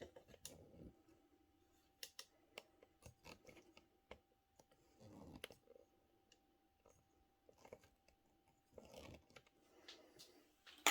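Faint scattered clicks and light knocks with a few brief rustles, as computer keyboards are handled and set down on a desk.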